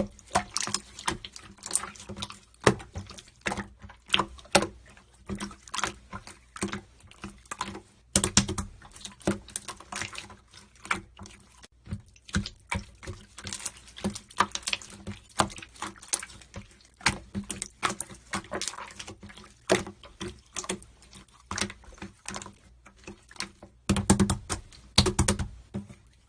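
A dense, irregular run of quick clicks and taps, heavier in a cluster near the end and closing on one loud click.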